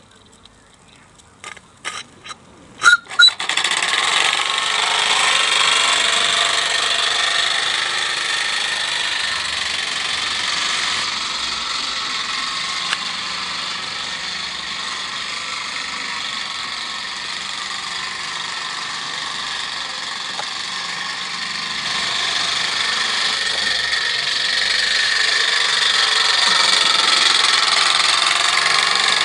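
Gauge 1 live-steam model tram running on a garden railway track, its small steam engine giving a steady hissing exhaust, quieter in the middle and louder again near the end. A few sharp clicks come about two to three seconds in, before the running sound begins.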